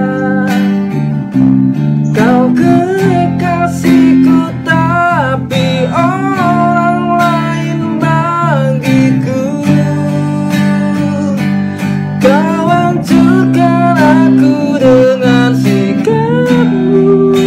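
A male voice singing a song, with held, wavering notes, accompanied by a strummed acoustic guitar and an electric bass guitar.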